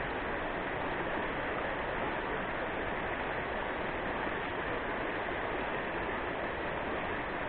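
Steady rush of water from mountain river rapids.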